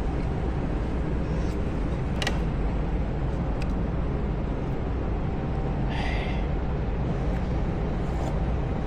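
Steady low background rumble with a few light clicks and a brief rustle about six seconds in.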